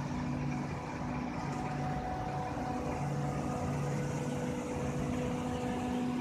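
Air-cooled chillers running, their banks of large condenser fans giving a steady whir over a constant machine hum.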